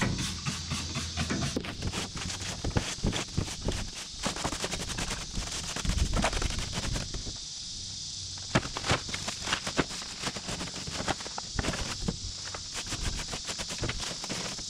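A steady spray hiss over a dense scatter of quick clicks and knocks, as a pickup's bed toolbox is soaked down to wash spilled automatic transmission fluid out of it. The hiss breaks off briefly about halfway through.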